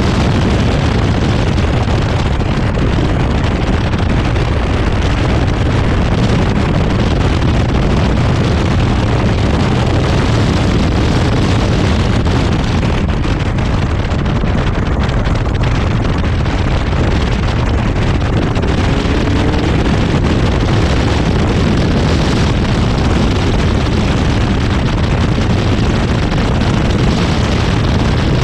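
Zenos E10R's turbocharged four-cylinder engine running hard at track speed, heard from the open cockpit under loud, steady wind buffeting on the microphone.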